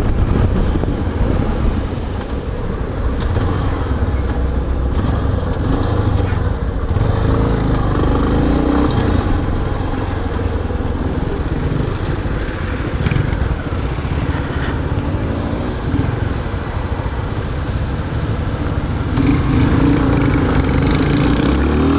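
Yamaha XTZ 250 Ténéré's single-cylinder engine running on the move in traffic, its pitched engine note coming up twice, about a third of the way in and again near the end, over a heavy low rumble of wind on the microphone.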